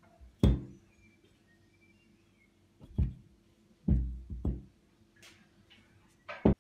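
Rusty iron pipe flange being handled and set down on a towel-covered surface: several knocks a second or two apart, two of them close together near the end.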